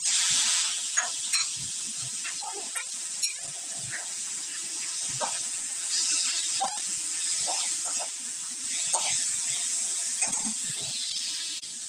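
Pork chunks sizzling in a hot metal wok, the sizzle starting suddenly as they are tipped in. A metal spatula scrapes and knocks against the pan as it stirs.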